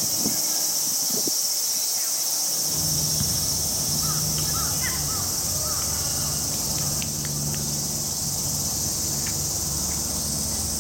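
Cicadas droning in a steady, high, continuous hiss, with faint shouts from players on the pitch.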